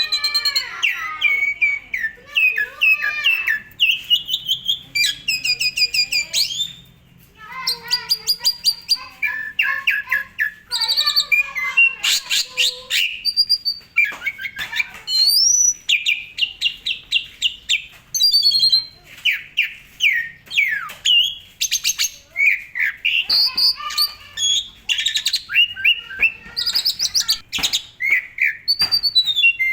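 Asian pied starling (jalak suren) in full song: a loud, continuous run of varied phrases. Clear whistles, gliding notes, rapid rattling trills and harsh chatter follow each other with only brief pauses, the longest about seven seconds in.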